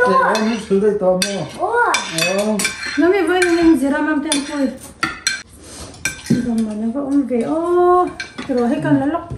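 Spoons and forks clinking and scraping against ceramic plates and serving bowls at a family meal, with voices talking over it for much of the time.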